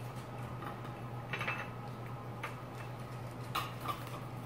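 Wooden chopsticks clicking and tapping on a ceramic plate as pieces of food are picked up: a handful of light, separate clicks over a steady low hum.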